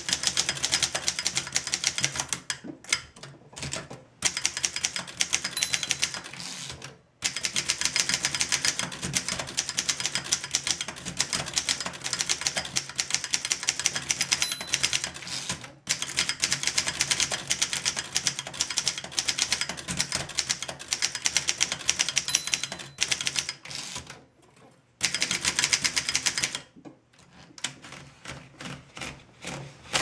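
A 1927 Corona No. 4 portable typewriter being typed quickly: rapid runs of key and type-bar strikes with short pauses between bursts, the strikes thinning out near the end. The machine is freshly serviced, with a realigned shift mechanism, an adjusted escapement and new feed rollers.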